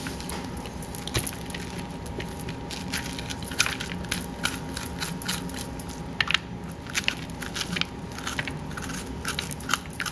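A spoon scraping and scooping the seeds and stringy pulp out of a raw acorn squash half: a run of irregular crunchy scrapes and clicks.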